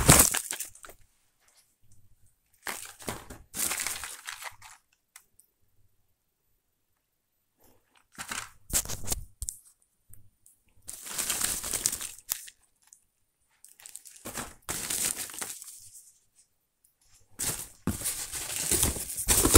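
Crumpled brown packing paper and a cardboard box being handled and pulled apart, crinkling and rustling in short bursts with silent pauses between.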